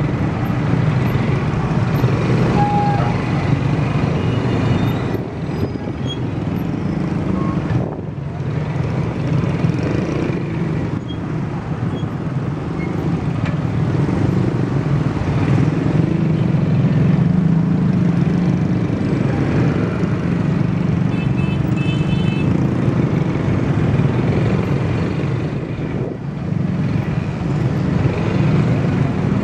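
Road noise from the back of a moving motorcycle taxi in dense, slow city traffic: the bike's engine mixed with the cars and scooters packed around it. A steady low rumble that dips briefly a few times.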